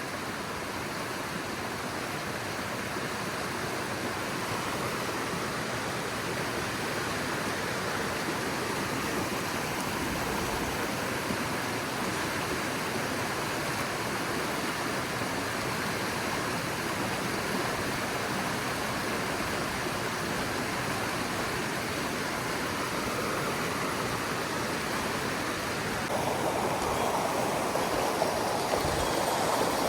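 Mountain stream rushing over rocks, a steady wash of water that gets a little louder near the end.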